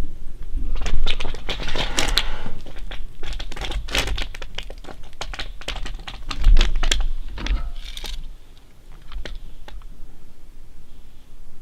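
Bear climbing a tree, its claws scraping and crackling on the bark in a dense run of scratches, with one heavy knock about halfway through, then only scattered scratches near the end.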